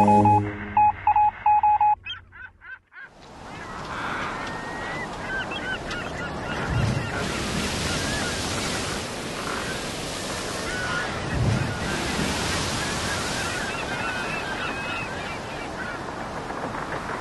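A few short electronic beeps at the start, then waves washing steadily with birds calling repeatedly over them.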